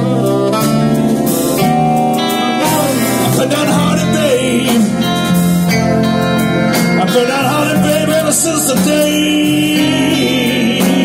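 Live band playing: a man singing over electric guitar, keyboard and drums, with a saxophone.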